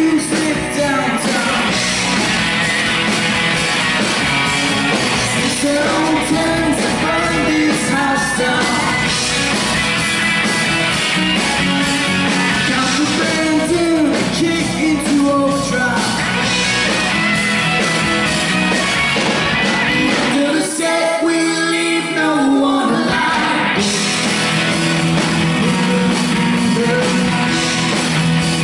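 Live rock band playing: electric guitars, bass, drums and keyboard, with singing. The low end drops away for about two seconds around twenty seconds in, then the full band comes back.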